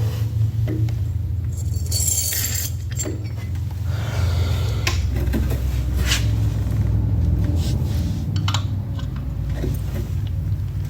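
Scattered metallic clinks and rattles of a wrench and hand tools on a small metal part, over a steady low hum.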